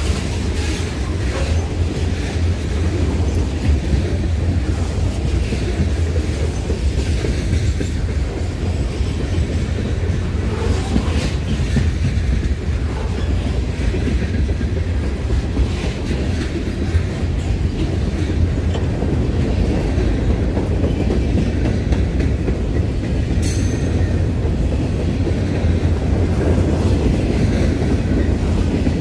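Freight cars of a passing train rolling by: a steady low rumble of steel wheels on rail with a clickety-clack of wheels over the track.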